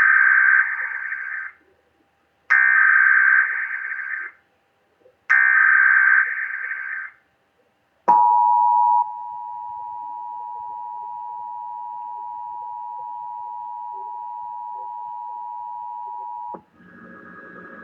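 NOAA Weather Radio Emergency Alert System tones: three short bursts of SAME digital header data, about a second apart, then a steady attention tone that starts about eight seconds in, holds for about eight seconds and cuts off suddenly. Together they open a new alert message.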